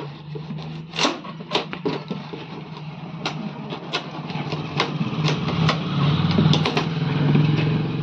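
A knife cutting and working at plastic packing straps on a cardboard box, heard as a series of short sharp clicks and snaps. Under them runs a steady low engine-like hum that grows louder from about five seconds in.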